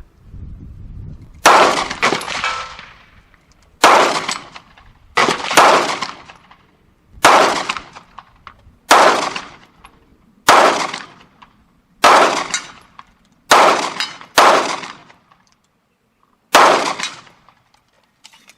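FN 509 9mm striker-fired pistol firing a slow string of about a dozen shots, one every one to two seconds, at a steel gong 100 yards away.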